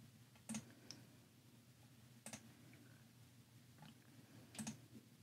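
A handful of soft computer mouse clicks, about five spread over a few seconds, in near silence.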